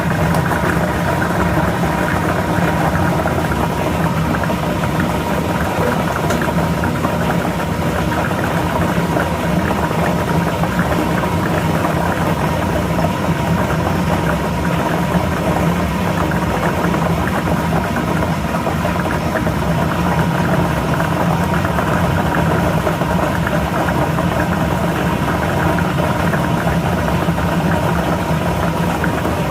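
Lottery ball machine running: a steady motor hum with a continuous rattle of balls tumbling in the drum.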